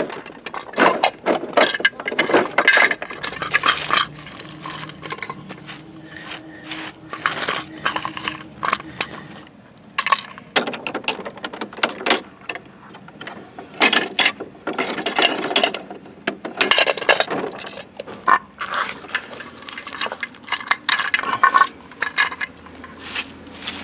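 Irregular plastic clicks and clatters from toy garbage trucks being handled: the rear loader's packer drum turning, then a toy wheelie bin knocked against the lifter and set down.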